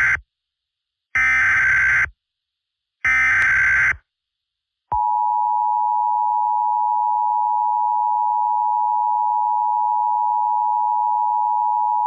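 Emergency Alert System header: the end of one harsh, buzzing data burst, then two more about a second long each, followed after a short gap by the long, steady EAS attention tone.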